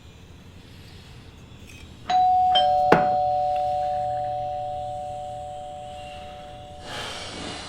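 Two-tone doorbell chime, ding-dong: a high note about two seconds in, then a lower note half a second later, both ringing on and fading slowly until they cut off abruptly near the end. A sharp click sounds just after the second note.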